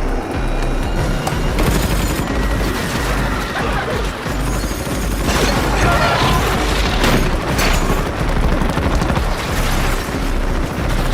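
Dramatic soundtrack: music mixed with heavy booms and crash-like impact effects.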